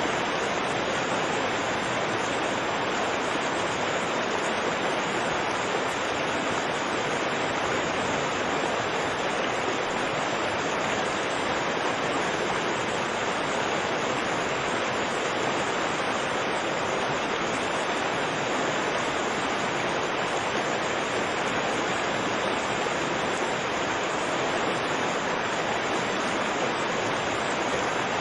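Fast, turbulent river water rushing steadily, an even wash of noise that never changes in level.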